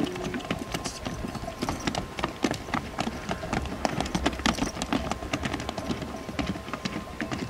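Horse hoofbeats on stony, gravelly ground, quick and irregular.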